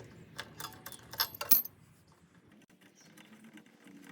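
Metal tools clinking and rattling: a handful of sharp clicks in the first second and a half, during work on a lawn mower's spark plug.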